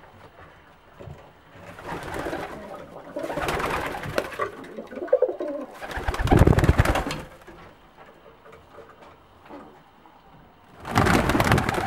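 English tippler pigeons cooing in a small wooden loft, with bursts of wing clatter as birds flap about on the perches; the loudest flapping comes about six seconds in. Another loud rustling burst starts near the end.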